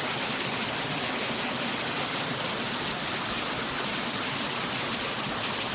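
Water of a seven-tiered mountain valley waterfall rushing and splashing as a steady, even roar of falling water.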